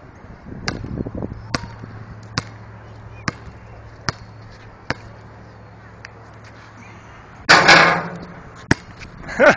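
Basketball dribbled on an outdoor hard court, six bounces at about one every 0.8 seconds. Near the end a loud rush of noise, then a single sharp knock.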